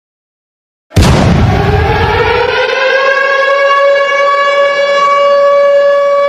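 Air-raid siren starting suddenly after about a second of silence, with a low rumble at its onset. It winds up in pitch and then holds one steady wail.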